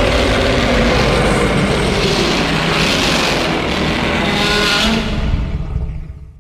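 A Godzilla sound effect: one long, harsh call that holds steady, swells twice, then fades out near the end.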